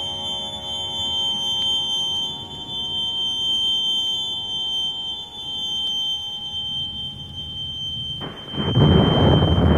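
Electronic drone music: sustained, layered organ-like tones over a steady high whine and a low rumbling noise bed. About eight seconds in, the chord drops away and a loud rushing, rumbling wash of noise swells in.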